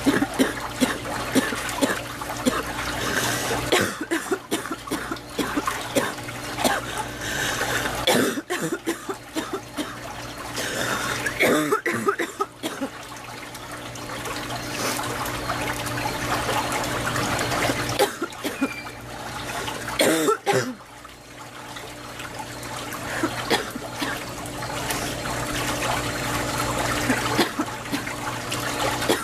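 A woman coughing repeatedly, in several bouts with some clearing of the throat, over steady running water; the cough of someone who is unwell.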